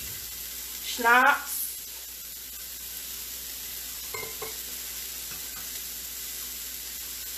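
Hash browns frying in a pan: a steady sizzling hiss.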